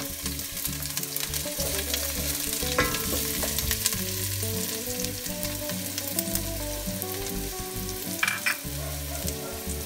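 Minced garlic sizzling in hot oil in a stainless steel pot, stirred with a wooden spatula, with a few sharp scrapes and clicks of the spatula against the pot, the clearest about three seconds in and near the end.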